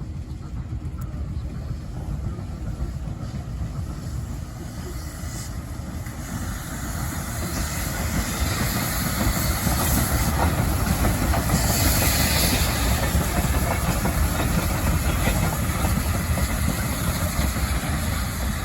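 A train rolling past, its wheels on the rails making a steady rumbling noise that grows louder over the first several seconds and then holds.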